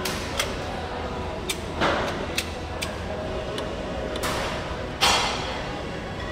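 Gym background clatter from weight equipment: scattered sharp clicks and knocks, with two louder clattering bangs, one about two seconds in and a louder one about five seconds in.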